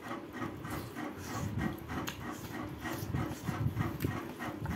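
A person chewing a mouthful of rice with the mouth open: wet lip smacks and mouth sounds at about three a second.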